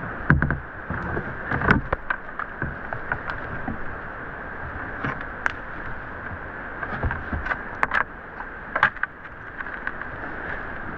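Steady rushing of a whitewater river, with scattered sharp knocks and clacks from kayaking gear being handled.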